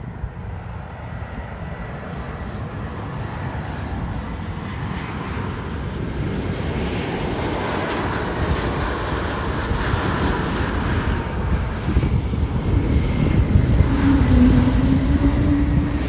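Regional jet airliner's turbofan engines at close range, growing steadily louder and peaking in the last few seconds.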